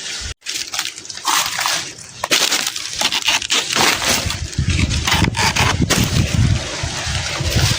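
Outdoor rustling noise with wind buffeting the microphone, the low wind rumble getting heavier about halfway through.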